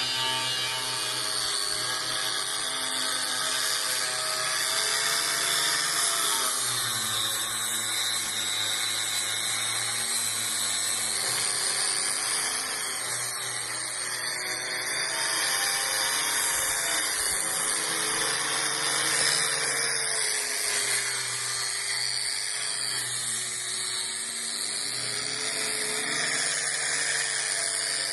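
A handheld power tool running without a break, its pitch sagging and picking up again as it is pressed into the work and eased off.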